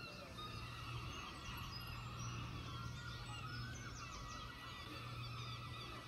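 A colony of seabirds on the sea cliffs calling, many short overlapping honking calls at once, over a steady low rumble.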